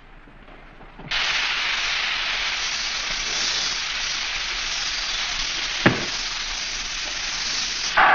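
A crowd hissing in disapproval, starting abruptly about a second in and holding steady for about seven seconds, with one sharp knock partway through. Louder crowd cheering breaks in at the very end.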